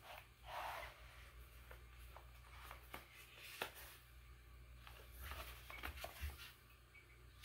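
Faint rustling and light tapping of a small cardboard box being opened and handled, a few soft bursts scattered through, over a low steady room hum.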